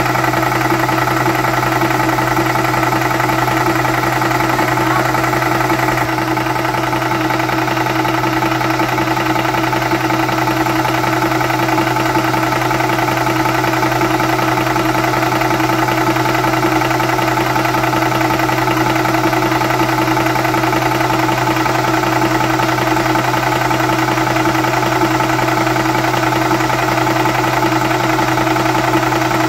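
Wolf 300 bar high-pressure air compressor running steadily with its cooling fan on, pumping an air rifle up toward 290 bar: a loud, even machine hum with a fast, fine rattle.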